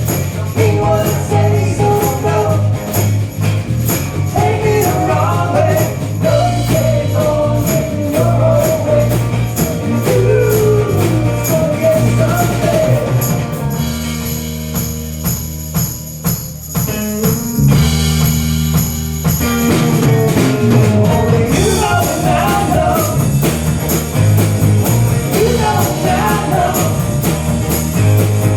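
Rock band playing a song, with a lead vocal over bass and drums. The singing drops out for a sparser instrumental passage a little past the halfway point, then returns.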